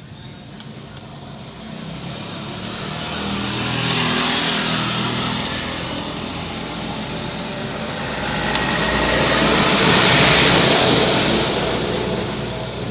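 Road vehicles passing by: two passes, each building up and fading away, the second louder, about ten seconds in.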